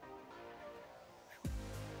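Background music with sustained chords. A louder bass comes in near the end.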